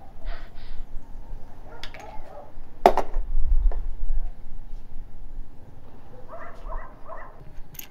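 Short wordless groans from a man who has been shot in the chest, then a sharp knock about three seconds in and three short vocal sounds in quick succession near the end.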